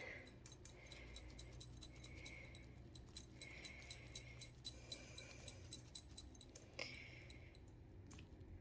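Faint, irregular light ticks and soft scraping of a stir stick against a mixing cup as white pigment paste is stirred into epoxy resin.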